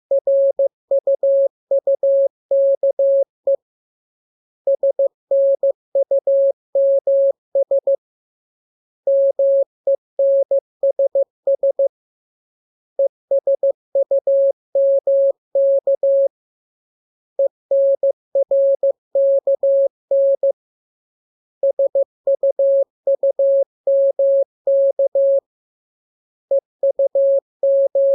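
Morse code: a single steady mid-pitched beep keyed into dots and dashes, sent in groups about three seconds long with a pause of about a second between groups, as practice text for learning the letters K, M, U, R, E, S and N by ear.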